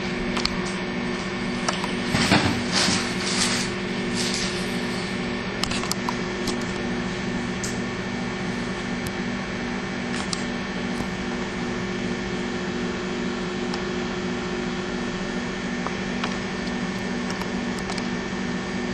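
Microwave oven running with its steady electrical hum, with a few faint clicks, mostly in the first few seconds.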